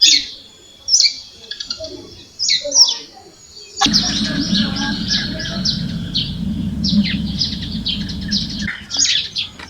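Small birds chirping and twittering in quick, high calls. From about four seconds in until near the end, a louder steady low noise runs underneath the birdsong, starting and stopping abruptly.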